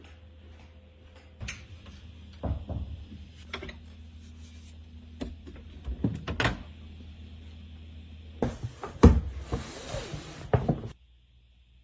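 Household handling noises: scattered clicks and knocks of things being moved and set down, over a steady low room hum, with two short rustling stretches near the end and the loudest knock about nine seconds in.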